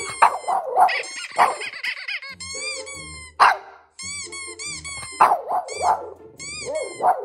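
Boston terrier barking and yipping several times in short bursts, with a warbling whine about a second in, over a repeating high-pitched pulsing tone played back to him.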